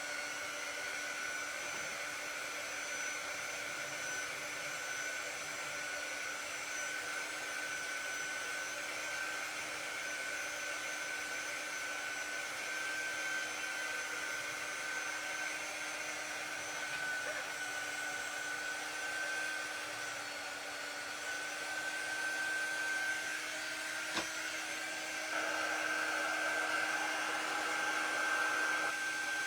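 A small handheld craft quick-dry tool blowing air, a steady whirr with a high whine, drying freshly painted paper cutouts. A sharp click sounds about 24 seconds in, and it gets louder from about 25 seconds in.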